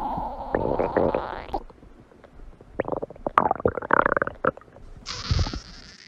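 Stomach growling: gurgles and rumbles come in irregular runs, with a short pause about two seconds in and a burst of gurgling after it. A brief hiss sounds near the end.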